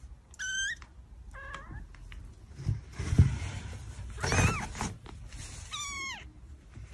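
Cat meowing four times in short, high calls, the last one falling in pitch. A couple of dull thumps come midway between the calls, the second one the loudest sound.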